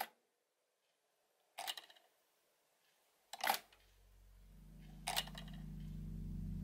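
Four sharp mechanical clicks, spaced about one and a half to two seconds apart. From about halfway, a low sustained music drone fades in and grows louder.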